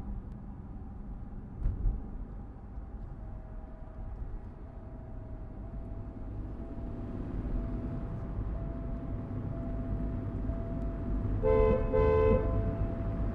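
Low rumble of a car on the move, heard from inside the cabin. About two-thirds of the way in, another car's horn sounds loudly for about a second.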